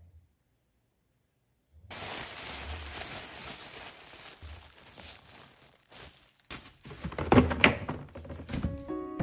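Black plastic garbage bag crinkling and rustling as it is fitted into a small lidded trash bin, starting about two seconds in, with a few louder crackles near the end.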